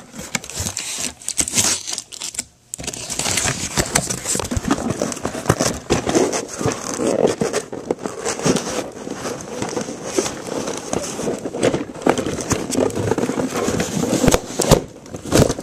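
Plastic and cardboard toy packaging crinkling and crackling as it is handled and pulled open, with a brief break about two and a half seconds in.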